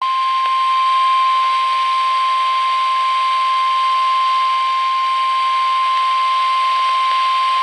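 NOAA Weather Radio 1050 Hz warning alarm tone: a single steady, loud beep held without a break over faint radio hiss, announcing a severe thunderstorm warning broadcast.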